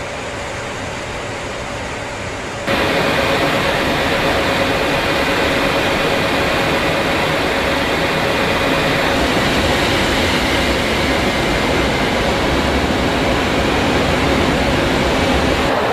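Steady cockpit noise of a B-52 bomber in flight: the even rush of its eight turbofan engines and airflow, with a faint steady whine over it. It steps up louder about three seconds in and then holds steady.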